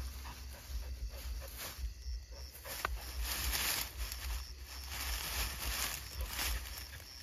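Rustling in dry grass and undergrowth, swelling a little past the middle, with night insects chirping high and evenly at about three chirps a second.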